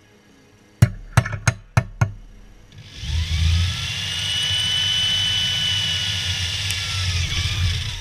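Five quick hammer blows on aluminium stock held in a bench vise. About three seconds in, a power tool starts up and runs steadily with a high whine.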